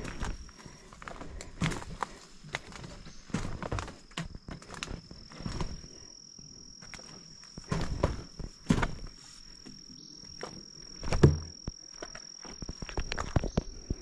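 A hiker's footsteps, irregular thuds about one a second, stepping down wooden stairs and walking on a dirt forest path; one heavier step about eleven seconds in. A steady high-pitched insect drone runs behind them.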